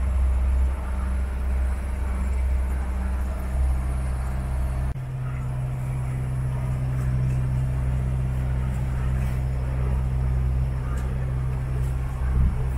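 Motorboat engine running steadily, a low hum, with a brief dropout about five seconds in.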